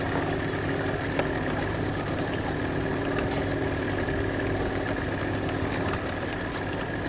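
An engine idling steadily, a constant hum with a few faint clicks over it.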